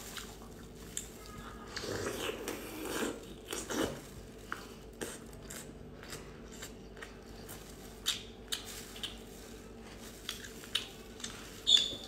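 Close-miked biting and chewing of a whole cooked octopus: wet mouth sounds with irregular sharp clicks, the loudest just before the end.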